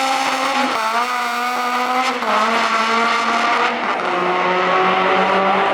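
Car engine running at a steady pitch at a drag strip, dropping in pitch in small steps three times.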